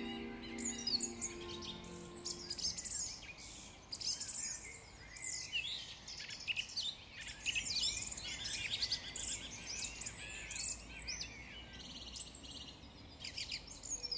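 Several birds singing and calling at once, a dense mix of quick chirps and trills. A few held music notes fade out in the first couple of seconds.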